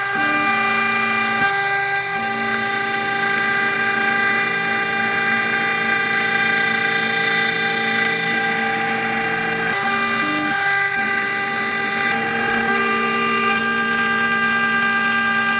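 High-speed spindle of a homemade CNC router whining steadily as it mills aluminum. Beneath the whine, a lower hum shifts pitch and drops out briefly a few times as the machine's moves change.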